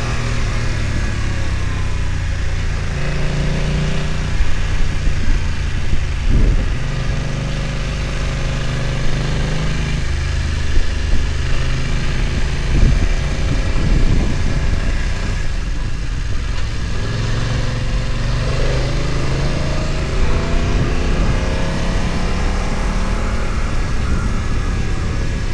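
BMW F900 XR's parallel-twin engine running under way, its note rising and falling with the throttle. A few short knocks come through at points.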